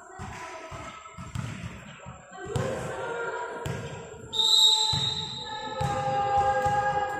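Repeated thuds of a volleyball in play, the ball being bounced and struck.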